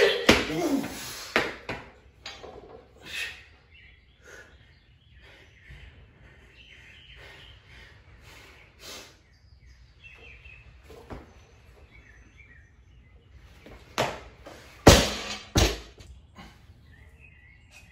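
A loaded barbell being lifted and dropped on a concrete floor: a strained yell with a thud as the bar is pulled and caught at the start, scattered small knocks, then about 15 s in two heavy thuds a little under a second apart as the barbell hits the floor and bounces.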